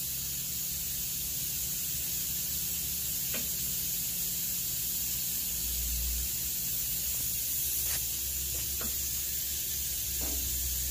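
Steady hiss and low hum of shop background noise, with a few faint light clicks as the steel square is set against the saw blade.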